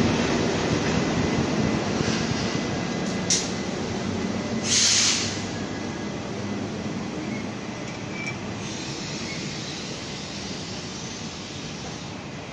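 Taiwan Railway Fuxing express train, hauled by an E200-series electric locomotive, pulling out of the station, its carriages rumbling over the rails and fading away. A sharp click comes about three seconds in and a brief hiss about five seconds in.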